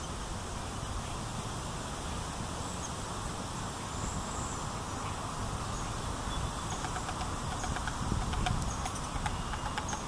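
Faint, short, high bird chirps, with a quick run of ticking calls near the end, over a steady low outdoor rumble.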